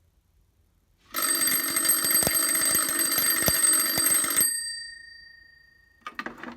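Simplex T-bar fire alarm bell ringing continuously for about three seconds, starting a second in, then cut off and ringing down for a second or so. Its reading on the meter is 34.2 decibels, which is not really loud.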